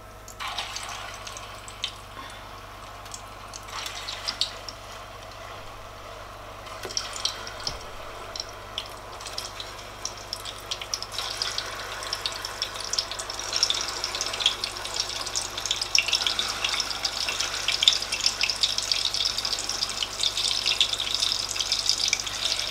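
Plantain chunks deep-frying in hot oil in a stainless steel pot: a crackling sizzle that grows louder and fuller as more pieces go in, with a few small clicks near the start as the first pieces are dropped in. The oil is now hot enough to sizzle.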